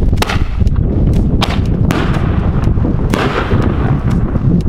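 Alamo Fireworks 'War Hammer' chrysanthemum aerial shell tubes firing: several sharp bangs of shells launching and bursting, the later ones trailed by a hiss of burning stars. A steady low rumble of strong wind on the microphone runs underneath.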